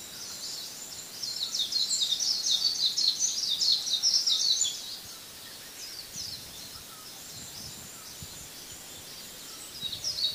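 Small birds chirping in a fast, dense, high-pitched twitter, loudest from about one to five seconds in, fainter for a while, then a brief loud flurry again at the end.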